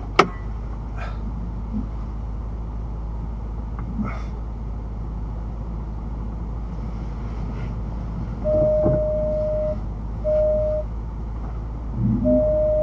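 Recovery vehicle's engine idling steadily, heard from inside the cab, with one sharp click just after the start. In the second half a steady electronic beep tone sounds three times, for about a second, half a second and a second, louder than the engine.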